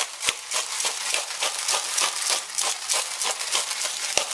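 Bottle-top pepper grinder being twisted, grinding black peppercorns in a steady run of crunchy clicks, about four a second.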